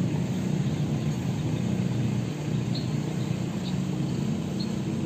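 Outdoor street ambience dominated by a steady low engine hum, like a nearby idling or passing vehicle, with faint short high chirps about once a second.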